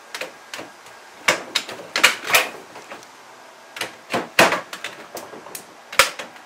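Yellow pry bar levering against a Reach 2S biometric holster gun safe mounted on a wooden cabinet, giving irregular sharp clacks and knocks as the bar shifts and bites against the safe and wood, about half a dozen loud ones.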